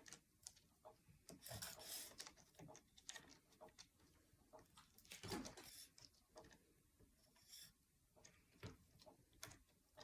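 Faint scattered clicks and rubbing from hands working the parts of a tripod, with a couple of brief rustles.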